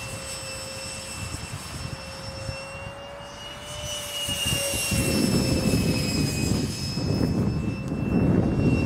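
Radio-controlled Yak-15 model jet with a 70 mm electric ducted fan flying overhead. A steady high fan whine bends slightly up and back down, and a rushing noise grows louder about halfway through.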